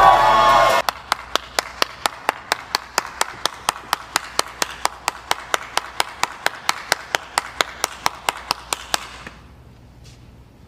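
One person clapping steadily, about five claps a second, for about eight seconds, then stopping abruptly. Under a second in, a crowd singing over music cuts off before the clapping starts.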